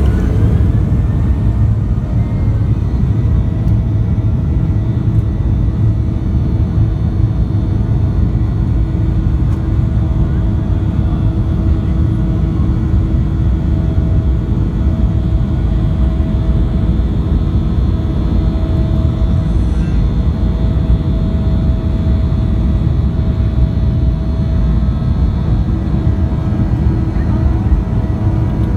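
Boeing 737-800's CFM56-7B turbofan engines running, heard from inside the cabin: a loud, steady, deep rumble with a few steady humming tones on top.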